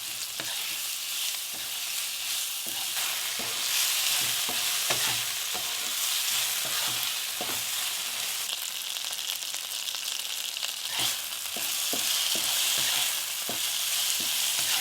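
Elephant apple pieces with onions and green chillies sizzling in hot oil in a pan, stirred so that the spatula scrapes and taps against the pan now and then.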